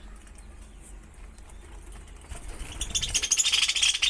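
Pet budgerigars: quiet at first, then a sudden loud burst of rapid, dense chirping a little over halfway through.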